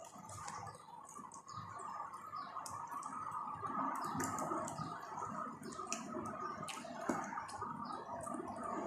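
Close-up eating sounds of fried chicken being chewed: a run of short, irregular wet clicks and smacks from the mouth and crispy skin.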